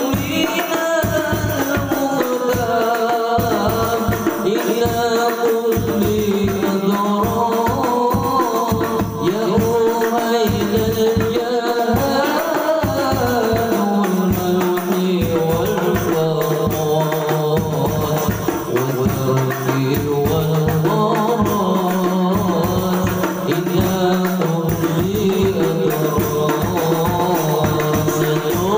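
Hadroh ensemble: men singing an Arabic devotional song (sholawat) into microphones, with hand-beaten frame drums (rebana) keeping a steady, driving beat.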